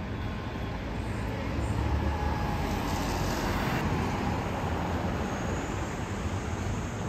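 City street traffic noise, a steady rumble and hiss of passing cars, swelling as a car drives by close about three to four seconds in.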